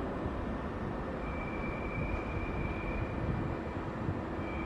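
Steady low rumble of trains at a railway station platform, with a faint high-pitched whine that sets in about a second in, drops out briefly, and returns near the end.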